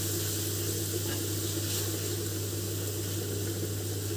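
Masala paste of onion, ginger-garlic and tomato sizzling in oil in a kadai as it is stirred with a silicone spatula, being fried until it turns red. A steady low hum runs underneath.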